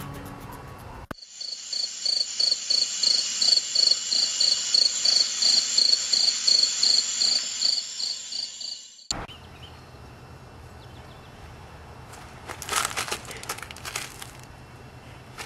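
Cricket-chirping sound effect: a steady run of high chirps about three a second, starting abruptly about a second in and cutting off sharply after about eight seconds. Then outdoor background hiss with a short cluster of scuffing noises near the end.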